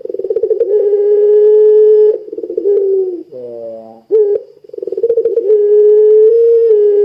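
Puter pelung dove, a domestic collared dove bred in Java for its long song, giving two long calls. Each opens with a fast rattling trill and then holds one steady note for a second or two. Short falling notes come in between.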